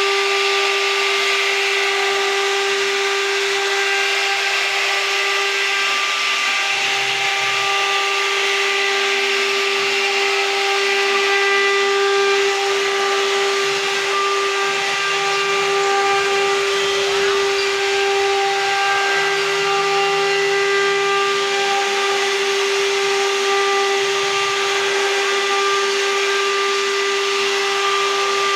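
CNC router spindle whining at a steady pitch as its bit engraves grooves into a wooden door panel, over a steady hiss of cutting. Fainter higher tones come and go as the bit moves along the pattern.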